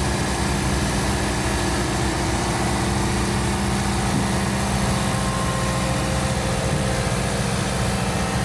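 John Deere 4066R compact tractor's diesel engine running steadily at low speed as the tractor creeps up onto a flatbed trailer.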